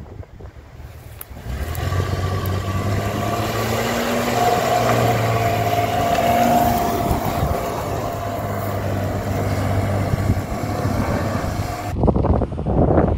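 Audi A6 C5 2.8 Quattro's V6 petrol engine revving under load as the car drives through deep mud, wheels churning. It builds up after a quiet first second or so, is loudest as it passes close around the middle, and the sound changes abruptly near the end.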